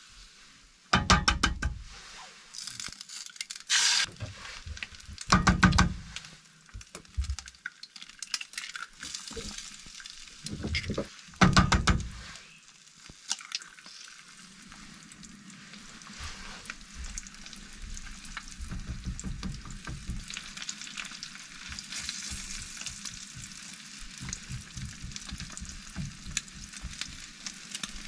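A few loud sharp knocks in the first twelve seconds, then eggs frying in hot bacon grease in a small non-stick pan, sizzling steadily while a spatula stirs and scrapes them.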